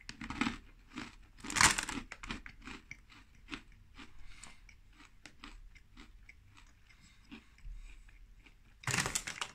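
Hard, crunchy pretzel pieces bitten and chewed close to the microphone. There is a loud crunch of the bite about a second and a half in, then steady crackly chewing, and another loud crunch near the end.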